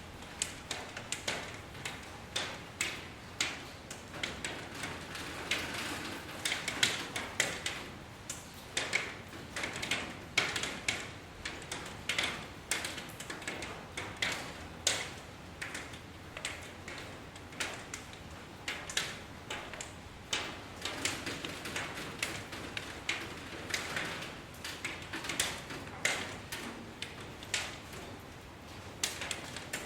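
Rain, with separate drops tapping irregularly on a hard surface, several a second and uneven in loudness, over a soft steady patter.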